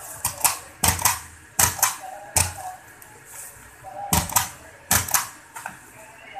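Rubber stamp being struck onto a paper bill on a wooden counter and inked on a stamp pad: about a dozen sharp knocks, mostly in pairs, with a pause in the middle.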